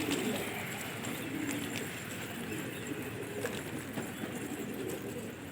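Domestic pigeons cooing: a steady, low, overlapping murmur.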